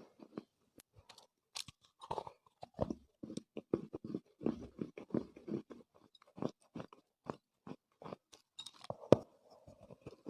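Chewing of dry Chinese loess clay: soft, irregular crunches several times a second, with one sharper, louder crunch about nine seconds in.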